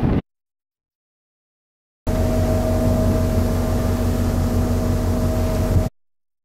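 Boat engine running with a steady hum under wind and water noise, in a clip of about four seconds that starts and cuts off abruptly between stretches of dead silence.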